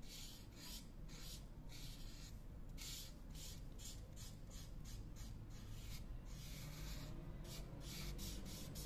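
Felt-tip marker rubbing faintly across sketchbook paper in quick, repeated back-and-forth strokes as an area is coloured in.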